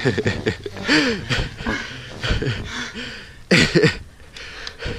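A man panting hard and letting out short groans, winded from a steep uphill hike. About three and a half seconds in comes one sudden loud burst of breath.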